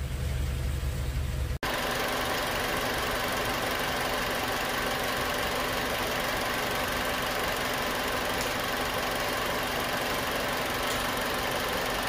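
Second-generation Honda CR-V's four-cylinder engine idling steadily, first as a low hum inside the cabin, then, after a sudden cut about one and a half seconds in, with the hood open. The idle holds even and does not hunt up and down, around the 700 rpm the mechanic reads as correct after working on the throttle body.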